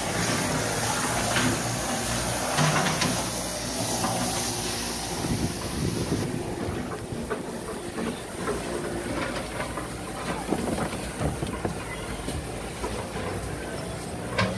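High-pressure water sprayer hissing steadily as crust is blasted off a fishing boat's hull. The hiss cuts off suddenly about six seconds in, leaving a quieter background with scattered light clicks and knocks.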